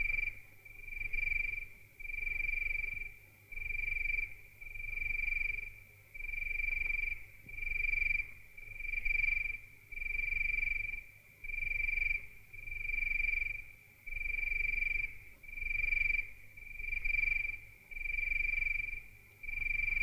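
Electronic film-score sound: a high, steady tone pulsing on and off about once a second, over a low throb that pulses with it.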